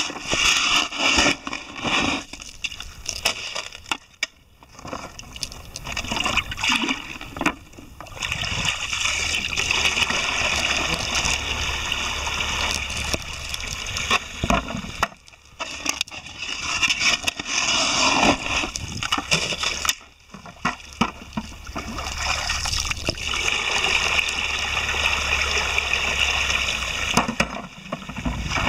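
Wet gravel scraped and rattled with a plastic scoop in a bucket for the first several seconds, then water pouring in a steady stream from a plastic jerrycan onto gravel in a small sluice tray, the pour breaking off briefly twice.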